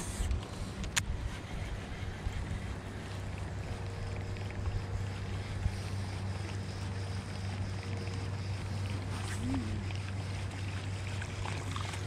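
Steady low hum of a small motor, with a sharp click about a second in.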